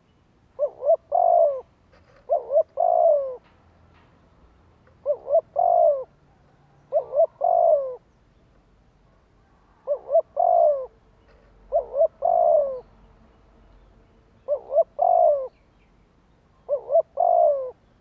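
Spotted dove singing its coo song: eight phrases about every two seconds, each two short coos followed by a longer falling one.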